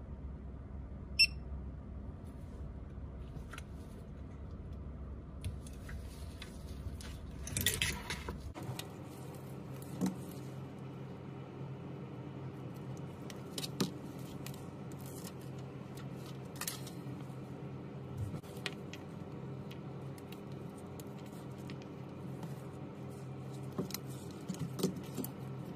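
Small clicks, taps and a brief scrape of metal tweezers and phone parts being handled on a bench, over a steady low hum. A sharp click about a second in is the loudest sound.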